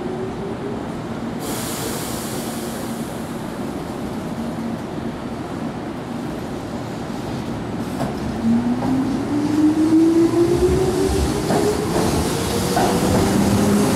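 Keihan 8000-series electric train pulling out: a short burst of hiss about a second and a half in, then from about eight seconds the whine of its inverter-driven traction motors rising steadily in pitch as it accelerates away. The whine grows louder as the cars pass, with wheel clicks over the rail joints.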